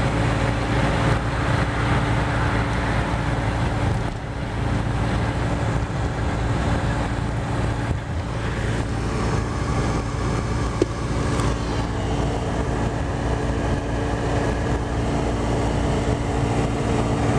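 Steady road and engine noise of a car driving at speed, heard from inside the cabin, with a constant low hum. One brief click about eleven seconds in.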